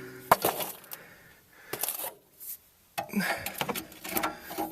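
Sharp metal knocks and clatter from a bar tapping a car's shock strut to free it and drop it down. There is one loud knock about a third of a second in, then scattered knocks, and busier clatter in the second half.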